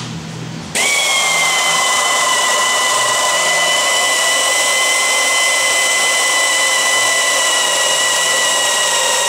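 Handheld power drill boring out the original rivet holes in heavy-gauge steel, running continuously at steady speed for about eight seconds. It makes a steady high whine over hiss, starts suddenly about a second in, and begins to wind down at the very end.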